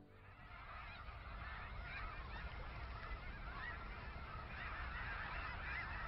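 A large flock of birds calling together: a dense, continuous chatter of many small overlapping calls.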